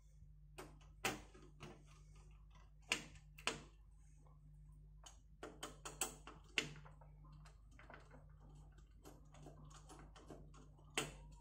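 Irregular clicks and light knocks of computer parts being handled and fitted into a PC case, in small clusters at uneven intervals, over a low steady hum.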